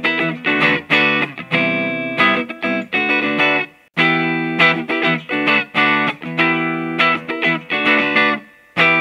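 Background music: distorted electric guitar strumming chords in short, repeated stabs, breaking off briefly about four seconds in and again near the end.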